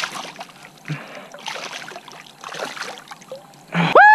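A hooked bass splashing and thrashing at the surface as it is grabbed by hand and lifted from the water, with irregular splashes and dripping. Near the end a loud, drawn-out shout of "woo" begins.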